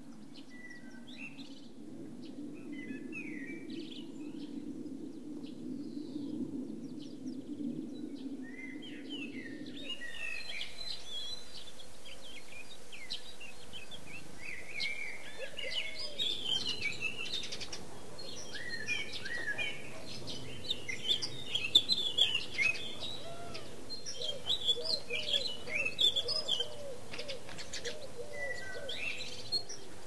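Small songbirds chirping and twittering, sparse at first and much busier from about ten seconds in. In the last third a dove coos low and repeatedly. A low steady hum underlies the first third.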